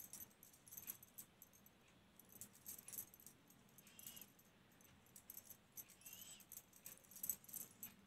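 Faint, light clinking ticks in short clusters from hands working a metal crochet hook through wool. Two brief faint chirps come about four and six seconds in.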